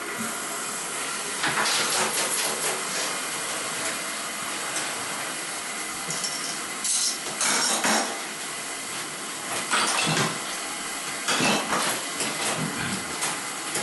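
Fluidmaster toilet fill valve filling the tank after the water supply is turned on: a steady rushing hiss of water with several brief louder bursts.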